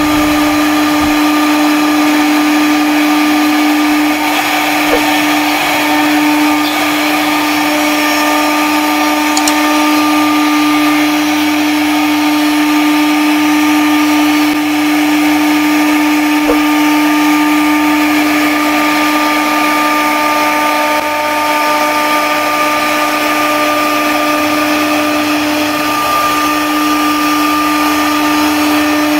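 CNC router spindle running at a steady pitched whine while its bit mills the edge profile of a wooden cutting board, with the hiss of the cut over it.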